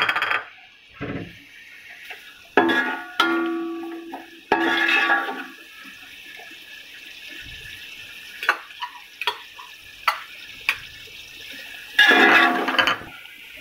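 A metal spoon scraping and knocking against a large metal cooking pot while stirring sliced onions frying in ghee, several strikes ringing on briefly. A faint sizzle of the frying runs between them, loudest near the end.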